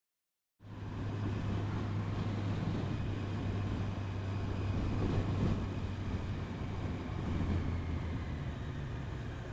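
A motorcycle riding along at steady speed: a constant low engine hum with road and wind noise. It cuts in suddenly just after the start, following a moment of silence.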